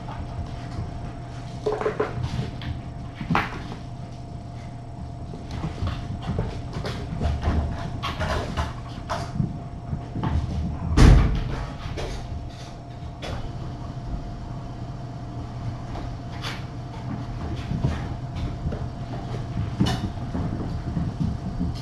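Kittens playing and chasing around a room: scattered knocks, taps and rustles of paws and toys, with one heavier thump about eleven seconds in, over a steady low hum.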